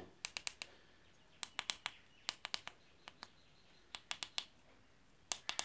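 Push-button keys on an electronic weighing scale's keypad being pressed repeatedly, clicking in about six quick bursts of three or four presses each. The scale gives no beep or other response; these keys have stopped working and their four-pin tactile switches need replacing.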